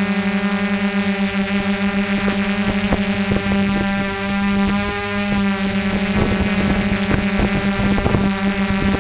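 Small multirotor drone's propellers hovering with a steady buzzing hum. Gusts of wind noise rumble on the microphone from about three seconds in.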